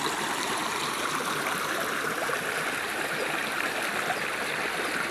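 Waterfall water running steadily, an even, unbroken rush of falling and splashing water.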